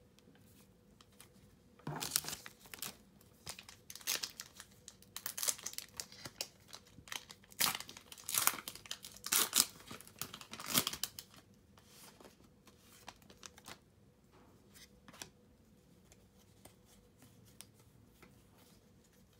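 Foil Pokémon booster pack wrapper being torn open and crinkled: a run of crackling rips and crinkles starting about two seconds in, loudest about halfway through, then fading to faint rustles.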